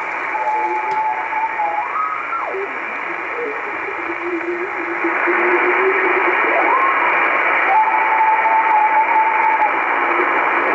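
Shortwave communications receiver in single sideband around 6.93 MHz, in the pirate-radio segment: a whistling tone over steady hiss. The tone swoops up and down in pitch, drops to a lower held note for a few seconds, then climbs back to the first note.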